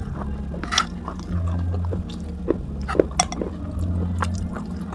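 Close-up chewing and biting of broken clay-pot pieces, with sharp, irregular crunches and crackles between the teeth. A low hum comes and goes underneath.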